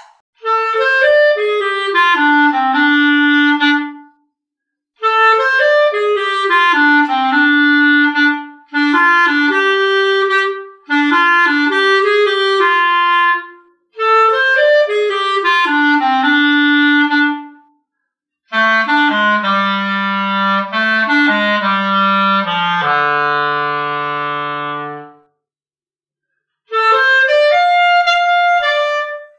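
Solo clarinet, unaccompanied, playing a cool-swing jazz melody in short phrases separated by brief silent rests. About two-thirds of the way through, a phrase drops into the low register and ends on a long held low note.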